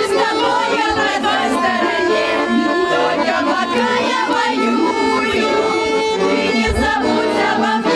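Bayan (Russian button accordion) playing a song while a small group of young women sing along.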